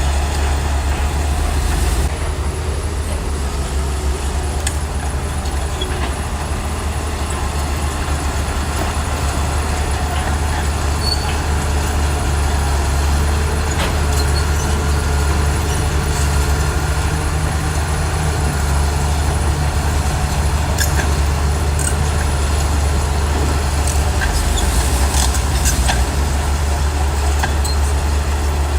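Heavy diesel engine of a bulldozer running steadily under load, with a few light clanks here and there.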